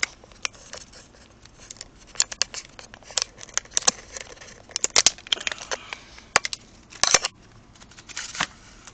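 A shipping package being opened by hand: a run of sharp clicks, cutting and tearing, and rustling of cardboard and packing material, busiest about halfway through and again near the end.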